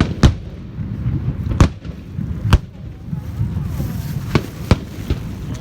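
Fireworks bursting overhead: about five sharp bangs at uneven gaps of one to two seconds, over a steady low rumble.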